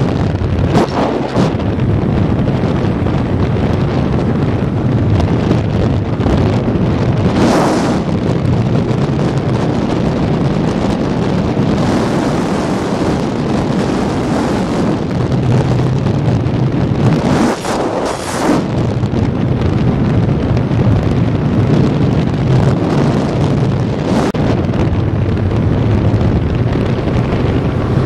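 Wind buffeting a helmet-mounted microphone on a moving motorcycle, with the steady note of a 1985 Honda CB650SC Nighthawk's inline-four underneath and several louder gusts. About two-thirds of the way through, the engine note dips briefly.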